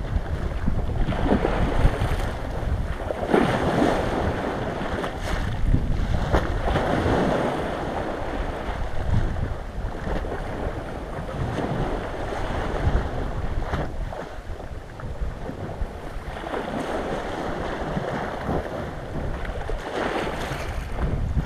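Small sea waves washing in over icy shore ice, swelling and falling back every few seconds, with wind buffeting the microphone as a steady low rumble.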